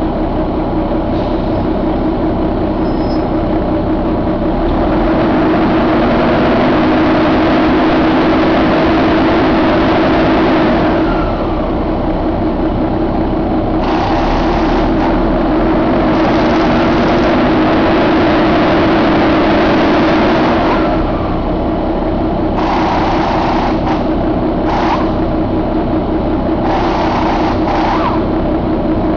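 Paccar MX13 inline-six diesel engine running steadily just after start-up. It grows louder for a long stretch about five seconds in, again from about fourteen to twenty-one seconds, and in a few shorter spells near the end.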